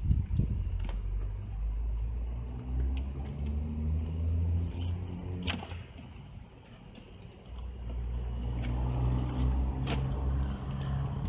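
Car engine running at low revs, its pitch shifting in steps, dropping quieter for a second or so about six seconds in before picking up again, with a few sharp clicks.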